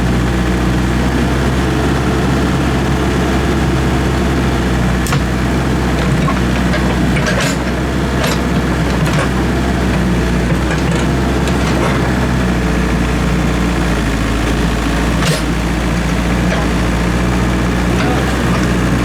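Excavator diesel engine idling steadily, with a few sharp metallic knocks now and then.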